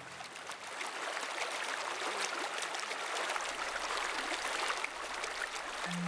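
A stream running steadily, a continuous rush of flowing water.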